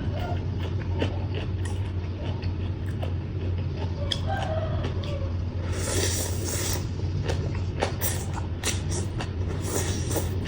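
Close-up chewing and crunching of papaya salad and raw vegetables, a run of small crackly clicks over a steady low hum. A rooster crows faintly in the background about four seconds in.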